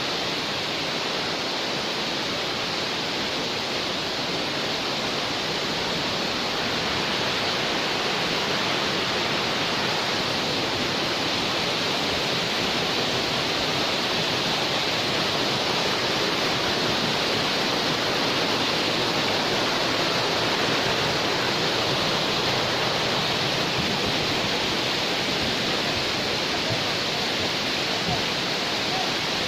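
Waterfall: a steady, loud rush of falling water that does not change.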